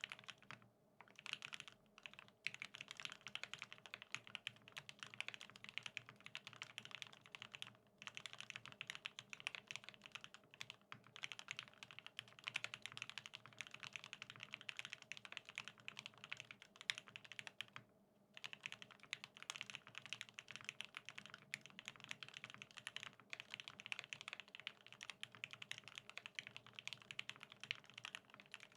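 Continuous fast typing on a BAEBAE TKL custom mechanical keyboard with lubed OA switches on an aluminium plate and NCR G81-3077 keycaps: a steady stream of quick keystroke clacks broken by a few short pauses.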